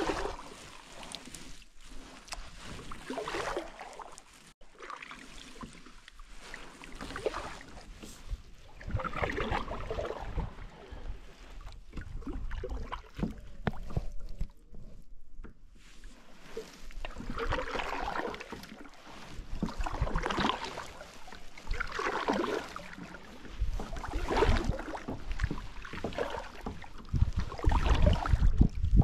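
Water swishing around a kayak in repeated surges about every two seconds, the rhythm of paddle strokes, with a quieter lull midway. Wind rumbles on the microphone toward the end.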